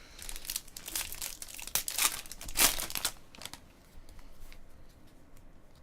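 Trading-card pack wrapper crinkling and tearing as a pack is opened by hand: a dense run of rustles over the first three and a half seconds, then fainter, sparser handling noises.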